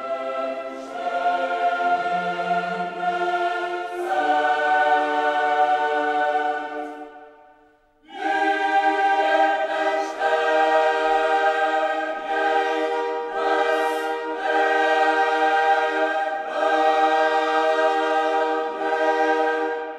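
Background music: a choir singing long sustained chords. It fades out about seven seconds in, then starts again a second later.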